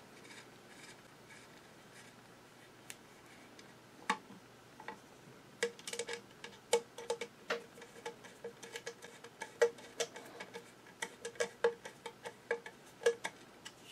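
Screwdriver turning the feed dog rock shaft pivot screw into the cast-iron bed of a Singer 66 sewing machine: light, irregular metal clicks and ticks, beginning about four seconds in and coming several a second.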